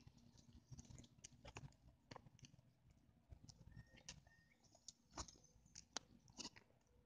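Near silence, with scattered faint clicks and ticks, the sharpest about five and six seconds in.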